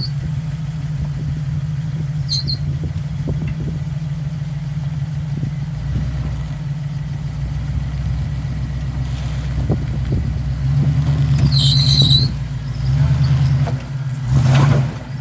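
Lifted 4x4 SUV's engine running at low revs while the truck crawls over rocks, with several throttle surges in the last few seconds. Two brief high squeaks come through, one early and one during the first surge, along with a few light knocks.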